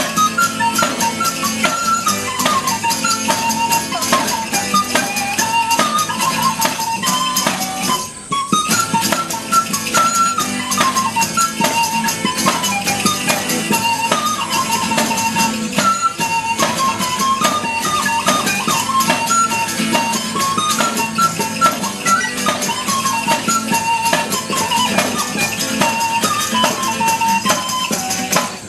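Live acoustic folk-style music: a small end-blown pipe plays a bright, hopping melody over a strummed acoustic guitar, with a steady jingling, rattling beat. The music breaks off briefly about eight seconds in, then picks up again.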